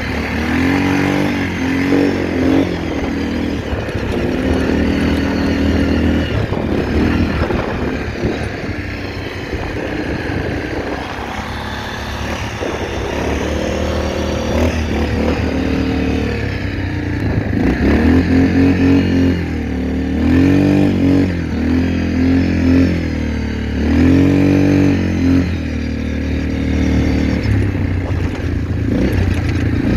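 ATV engine running under throttle, revving up and down again and again, its pitch rising and falling every second or two over a steady low drone.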